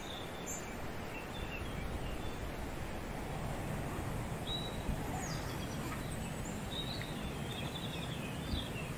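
Small birds chirping now and then, in short high notes, over a steady outdoor background noise. A couple of brief handling noises come from a backpack being opened, one about halfway and one near the end.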